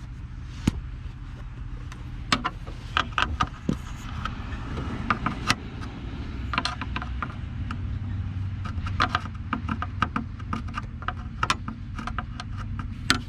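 Irregular sharp clicks and scrapes of a screwdriver working at a dashboard screw and plastic trim, over a steady low hum.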